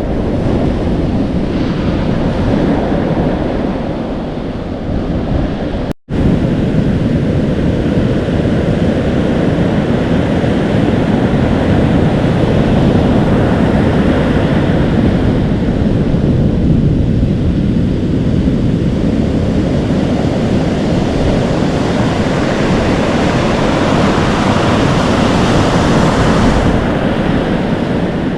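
Atlantic Ocean surf: waves breaking and foaming as they wash in, with wind buffeting the microphone. The sound cuts out for an instant about six seconds in, then carries on.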